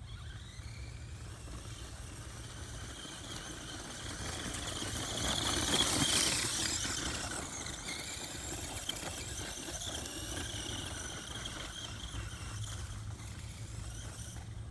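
Redcat Volcano EPX electric RC monster truck running, its motor and drivetrain whining at several high pitches. The whine swells to its loudest about six seconds in, then eases off, over a steady low rumble.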